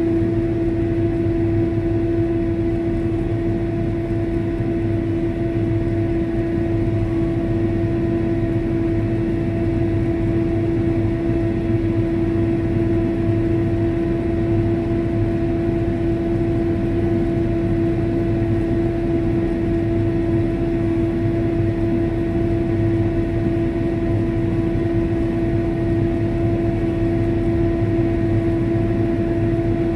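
Steady running noise inside a crop sprayer's cab as it drives across a field: low engine drone with a steady hum held at one pitch, unchanging throughout.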